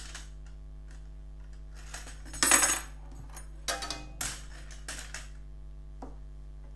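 Long metal tie rods being pulled out of a battery-cell pack's plastic bracket and laid on the plastic plates. There is a click, then a few short bursts of metallic clinking and scraping, the loudest about two and a half seconds in.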